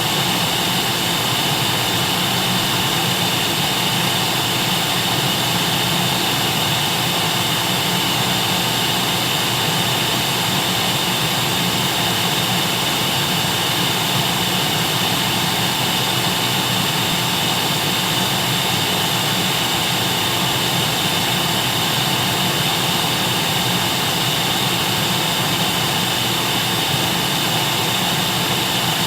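Vacuum cleaner running continuously at a steady pitch, a constant whooshing motor whine with no change in speed.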